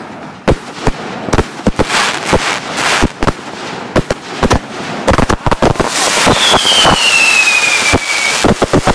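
Fireworks going off: a rapid, irregular string of sharp bangs and pops. From about six seconds in there is dense crackling, and a whistle falls in pitch for about two seconds.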